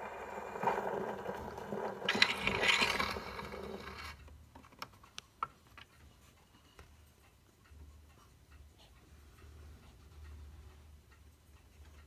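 Perophone Portable wind-up gramophone with a Micro-Perophone reproducer and steel needle, at the end of a 78 rpm shellac record: a scratchy surface-noise rush, louder about two seconds in, stops about four seconds in. A few sharp clicks follow, then faint ticking over a low turntable rumble as the needle rides the end of the record.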